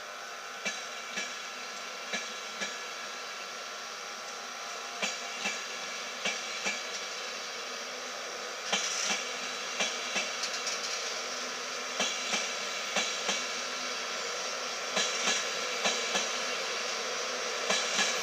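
East Coast passenger train's coaches rolling past the platform, a steady rolling noise with the wheels clicking over rail joints, mostly in quick pairs about once a second, growing slightly louder.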